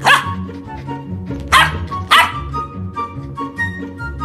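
Golden retriever puppy giving three short, high-pitched barks: one right at the start, then two close together about a second and a half and two seconds in. Background music plays throughout.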